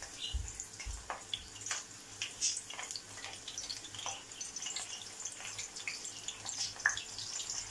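Strips of eggplant frying in hot oil in a pan: a light sizzle with scattered small pops and crackles.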